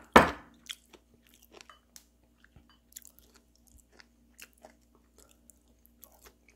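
A person chewing steamed beef tripe: many small scattered crunchy, wet clicks, with a louder burst right at the start. A faint steady hum runs underneath.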